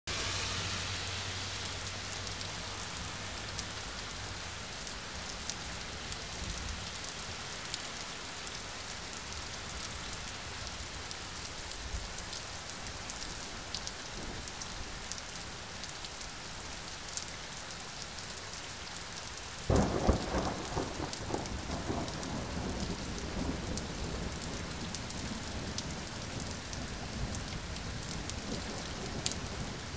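Steady rain falling through a thunderstorm, with a sudden loud clap of thunder about two-thirds of the way through that trails off into rumbling.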